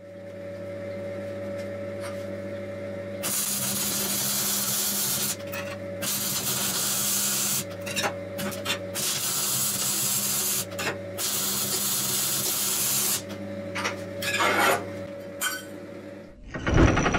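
Wire-feed (MIG) welding arc crackling and hissing in several runs of a second or two each, with a steady electrical hum in the pauses between them.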